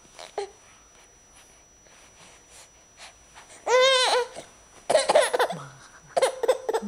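Baby laughing: after a quiet few seconds, one high squeal that rises and falls a little past halfway, then two short bouts of laughter.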